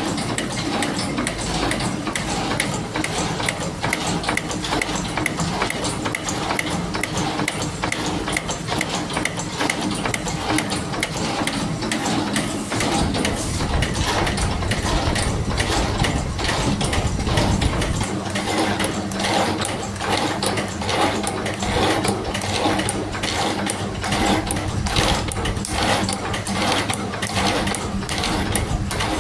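Mechanical spring coiling machine running, its forming tooling clattering in a fast, even rhythm as it feeds and forms wire. A deeper rumble joins in for a few seconds midway.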